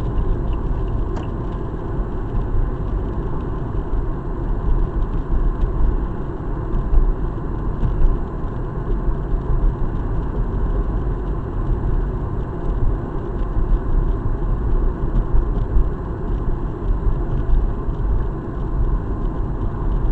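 Steady road and engine noise heard from inside the cabin of a moving car cruising at city speed.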